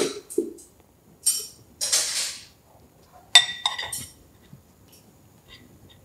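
Dishes and cutlery clinking as plates are set on a glass-topped table: a click at the start, two brief jingly rustles about one and two seconds in, then a sharp ringing clink a little past three seconds in, followed by a few smaller clinks.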